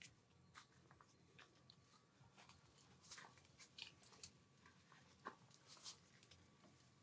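Near silence with faint scattered small clicks and rustles, busiest around the middle.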